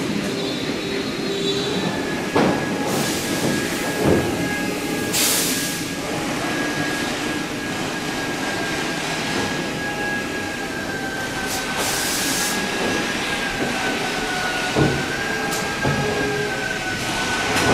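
Factory floor noise in a catamaran assembly hall: a steady machine whine under a general din, with a few short bursts of hiss and occasional knocks and clanks.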